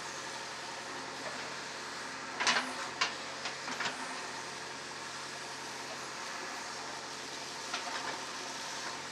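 JCB 3DX backhoe loader's diesel engine running steadily, with a cluster of sharp metallic knocks a couple of seconds in and a few lighter ones near the end.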